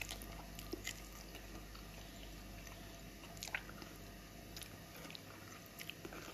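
Close-up eating sounds: biting and chewing at a boiled beef shank bone with marrow, with faint, scattered mouth clicks and smacks, the clearest about halfway through.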